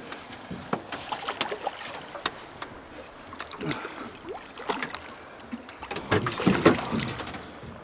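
Water lapping and splashing around a drift boat, with irregular small clicks and knocks, as a hooked trout thrashes at the surface beside the boat. The loudest splashing comes about six to seven seconds in.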